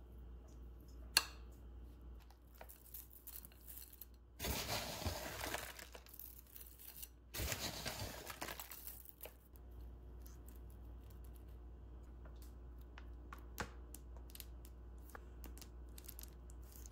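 A sharp clink of a metal spoon on a ceramic bowl about a second in, then granola poured from a crinkly packet onto a smoothie bowl in two rustling pours. A few light ticks follow as toppings are dropped on.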